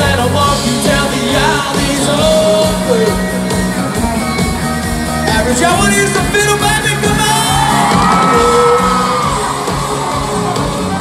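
Live country band playing at full volume: drums, electric guitars and fiddle, with a voice singing over them.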